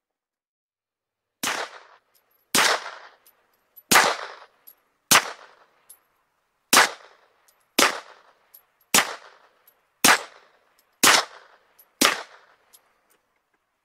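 Ten suppressed 9mm shots from a Taurus G3 Tactical pistol fitted with a Rugged Obsidian 45 suppressor. They come in a steady string at roughly one shot a second, each a sharp report with a short echoing tail.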